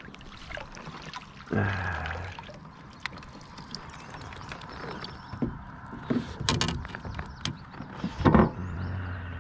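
Knocks, scrapes and sharp clicks of gear and a caught pike being handled on a plastic fishing kayak. The loudest knock comes near the end.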